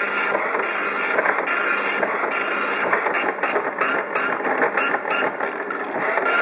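OKI dot matrix printer printing text onto continuous tractor-feed paper: the pin print head buzzes across the page in separate passes, each about half a second to a second long. About three seconds in, the passes turn into a run of short, quick bursts, then go back to longer passes near the end.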